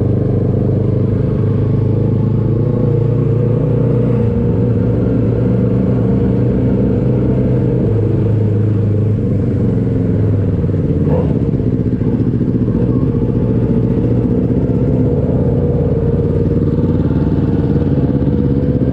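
Motorcycle engine running steadily while riding, its pitch shifting slightly about ten seconds in.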